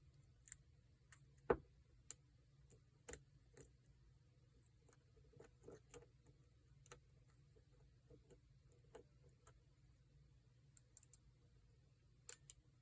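Faint, irregular clicks and ticks from a pick working the security pins of a Paclock 90A-PRO padlock under tension, with one louder click about a second and a half in.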